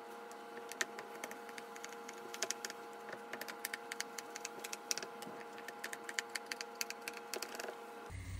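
Knife cutting raw layered baklava into squares in a metal baking tray: a quick, irregular run of light clicks and ticks from the blade going through the dough and touching the tray, starting about half a second in, over a steady faint hum.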